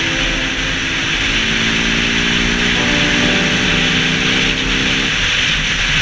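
Beta RR 125 LC single-cylinder engine, running without its dB-killer, pulling under way with its pitch climbing slowly, then breaking off briefly about five seconds in. Heavy wind rush over the helmet camera.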